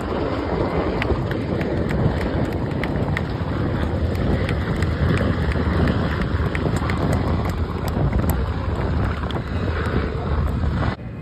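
H-60 Black Hawk-type military helicopter flying low past, its rotor and turbine noise making a steady heavy rumble, with wind buffeting the microphone.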